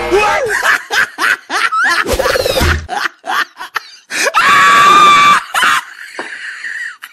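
Bursts of laughter and screaming with quick rising and falling pitch glides. A long, steady scream runs from just after four seconds to nearly six.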